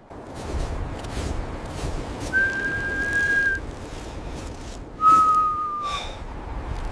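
Two long whistled notes: the first high and held steady, the second a little lower and sagging slightly at its end. They sound over a steady rushing noise with scattered soft knocks.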